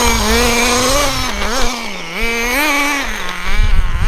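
Two-stroke nitro (glow) engine of an HSP Warhead RC buggy revving up and down as the car is driven, its high-pitched whine rising and falling with the throttle several times.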